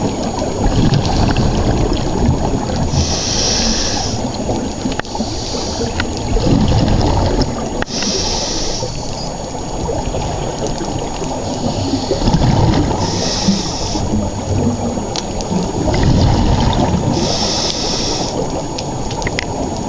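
Underwater sound through the camera's housing: a steady low gurgling rumble of water, broken by a short hiss every four to five seconds and gurgling bubbles in between, the rhythm of a diver's breathing.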